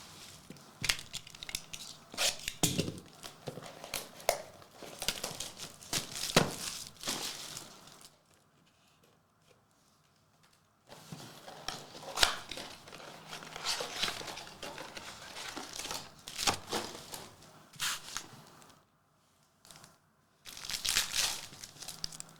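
Plastic wrapping and trading card pack wrappers being torn open and crinkled by hand, in crackly bursts with a pause of a few seconds partway through.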